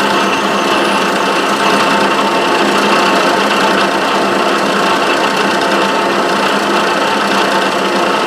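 Milling machine spindle running steadily with a 5/8-inch end mill cutting a cavity in a Delrin block, which throws stringy plastic chips.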